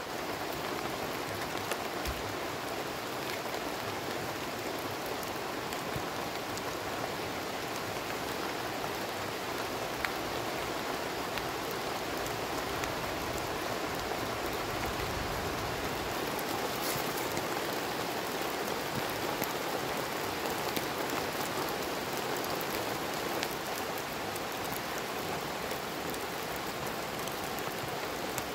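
Steady rain falling through teak trees: an even hiss with scattered light drop ticks.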